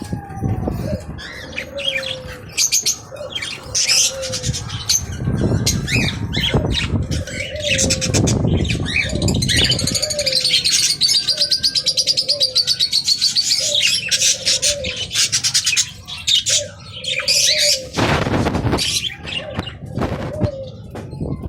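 A room of caged birds calling together: many high chirps and a long warbling trill over a low call repeated about once a second.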